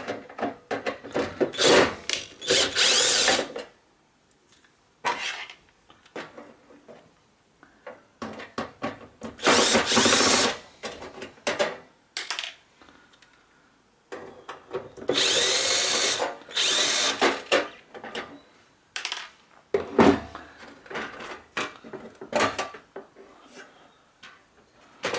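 Cordless drill-driver running in several short bursts as it backs screws out of a hot plate's sheet-metal base plate, with pauses and short knocks between the runs.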